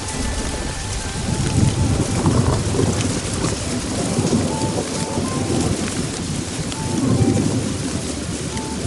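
Heavy rain falling steadily, with low rolling rumbles of thunder swelling about two seconds in and again near the end.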